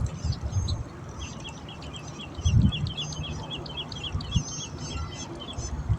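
Birds singing: one bird gives a fast, even trill of about seven short chirps a second for around three seconds, with other high bird notes around it. Two low thumps come about halfway through.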